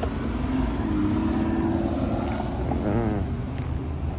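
A vehicle's engine droning over a steady low rumble, its pitch rising slightly over the first couple of seconds.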